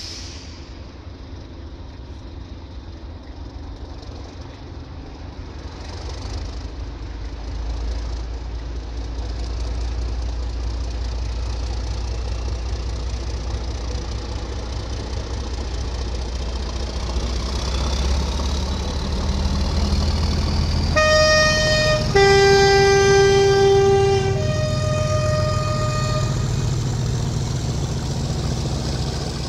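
Two Class 37 diesel-electric locomotives, English Electric V12 engines, running under power as they haul a train past and away, the engine rumble building through the middle with a faint rising whistle. About two-thirds of the way in, a two-tone horn sounds high, low, high, the low note longest and loudest.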